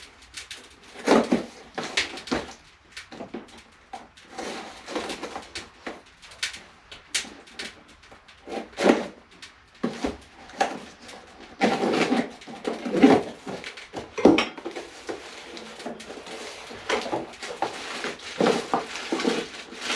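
A cardboard box being opened and its contents unpacked by hand: irregular rustling, scraping and crinkling of cardboard and packing material, with occasional knocks as parts are handled.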